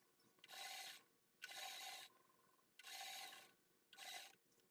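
Sewing machine stitching beaded lace onto fabric with a single-sided foot, run in four short faint bursts of about half a second with brief pauses between.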